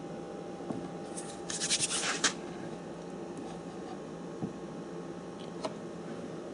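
Hands pressing and rubbing a glued emblem into place on a wooden toolbox front: a short run of dry scratching about a second and a half in, then a few light clicks over a steady low hum.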